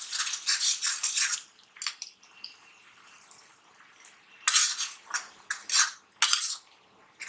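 Chopped onion frying in hot oil in a kadai, a faint steady sizzle under scrapes of a metal spatula stirring against the pan, with a run of scrapes in the first second and a half and another about four and a half to six seconds in.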